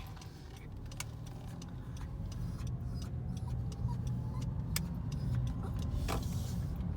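Vehicle road noise heard from inside a moving car: a low rumble that gradually grows louder as it picks up speed, with scattered light clicks and rattles.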